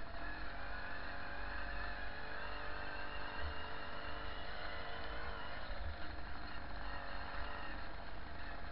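Babetta 207 moped's small two-stroke single-cylinder engine running steadily under way on a bumpy dirt track, its pitch wavering slightly, with wind rumbling on the helmet-camera microphone.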